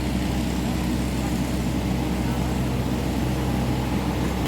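Excavator's diesel engine running steadily, a low even drone.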